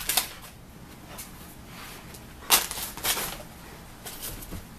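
Olde English Bulldogge playing with a new toy and its packaging: a few short rustling, scuffling noises, the loudest about two and a half seconds in.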